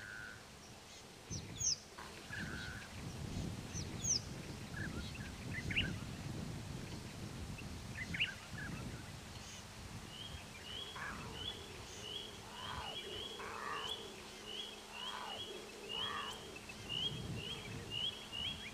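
Birds calling, with scattered chirps and short falling whistles. From about ten seconds in, one bird repeats a short chirp two or three times a second. A low rumble of background noise runs underneath.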